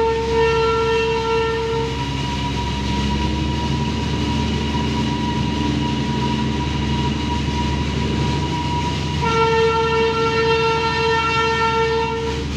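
Narrow-gauge diesel locomotive horn sounding two long blasts, the first ending about two seconds in and the second running from about nine seconds to near the end, with a thinner held tone between them. The diesel engine runs steadily underneath.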